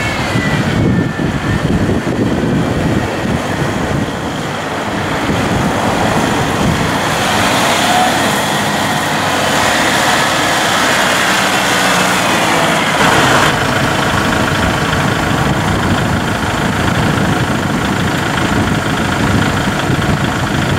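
The four-cylinder turbo diesel of a 2014 Kubota L6060 tractor runs steadily as the tractor is driven around, with a faint whine that rises and falls in pitch.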